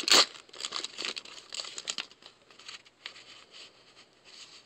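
Crinkling and rustling of a trading-card pack wrapper and cards being handled: a sharp crinkle at the very start, then a run of softer rustles that thin out after about two seconds.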